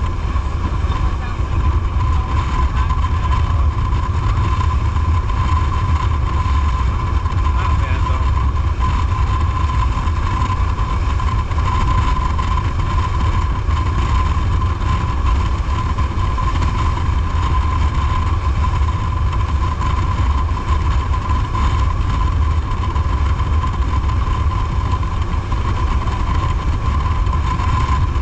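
Tour jet boat's engine and water jet running steadily at cruising speed, a continuous low rumble with a steady whine over it.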